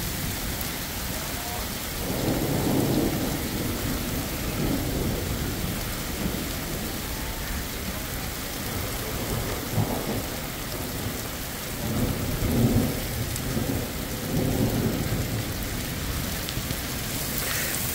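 Steady rain falling, with low rumbles of thunder that swell and fade, the strongest about two seconds in and again about two-thirds of the way through.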